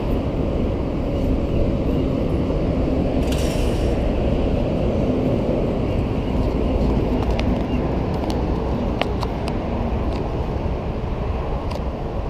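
Steady low rumble of street traffic, with a few faint clicks in the last few seconds.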